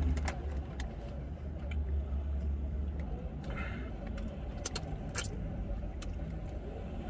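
Scattered crinkles and clicks of a paper takeaway bag being handled, with a short hissing breath about halfway through as the eater puffs out over chicken that is too hot, over a steady low rumble in a parked car's cabin.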